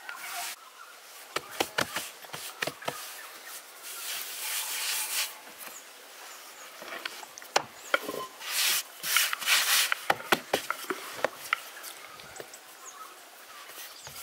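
Hands working a thin sheet of dough on a floured wooden board: scattered taps and knocks on the wood, with two longer stretches of rubbing and swishing as the dough is slid and folded over.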